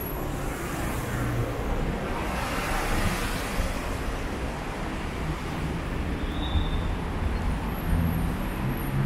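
Busy city road traffic: a steady rumble of engines and tyres, with a vehicle passing in a louder rush of tyre noise about three seconds in.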